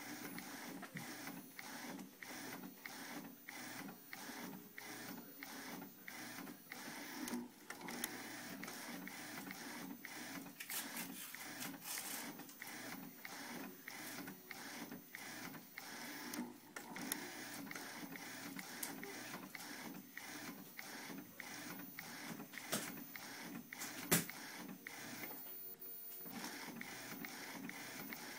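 Inkjet garment printer printing a T-shirt, its print head shuttling back and forth in a steady, regular mechanical rhythm. One sharp click comes about 24 seconds in.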